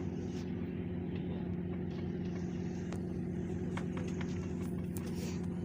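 Steady low drone of a fishing boat's engine, with a few faint clicks over it.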